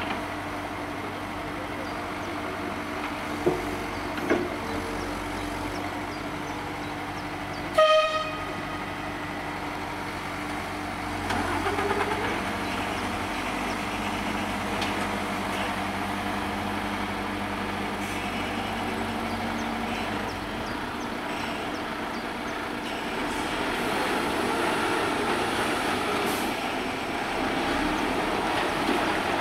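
Diesel engines of tipper trucks and a wheeled road-rail excavator running steadily, with one short horn blast about eight seconds in. Engine noise swells around twelve seconds and again near the end as a tipper truck pulls away.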